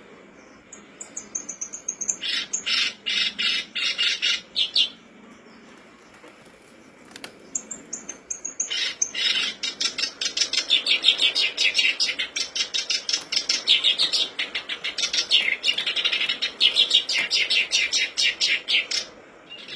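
Black-browed reed warbler (kerak basi alis hitam) singing: a short falling whistle opens a burst of rapid chattering notes lasting a few seconds. After a pause, another falling whistle leads into a long, fast run of repeated chattering notes, several a second, lasting about ten seconds.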